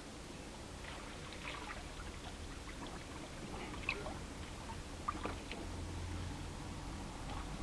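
Faint trickling and lapping of river water over a low steady rumble, with a few short faint ticks scattered through it.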